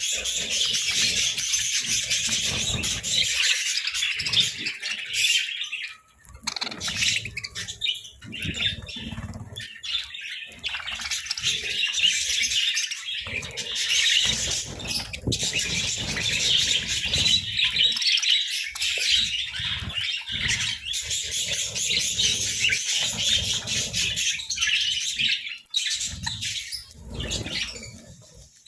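A group of budgerigars chirping and chattering almost without pause, in a dense, busy high-pitched warble that drops out briefly around six seconds in.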